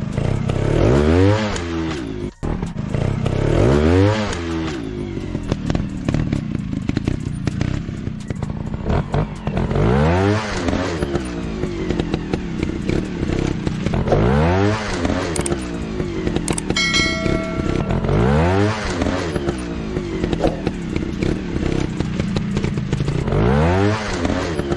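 Dirt bike engine idling, blipped hard about six times in short revving bursts that rise and fall in pitch. A brief steady beep-like tone sounds about two-thirds of the way in.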